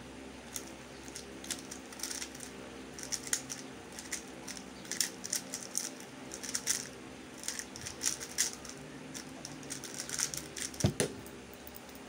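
MF3RS2 3x3 speed cube clicking and clacking as its layers are turned rapidly during a solve, with a louder knock near the end as the cube is put down on the table. An electric fan hums steadily underneath.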